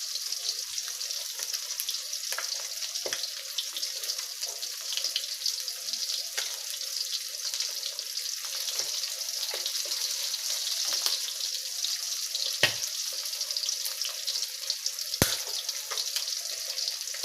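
Fish frying in hot oil: a steady sizzle with scattered crackles, and two sharper, louder pops in the second half.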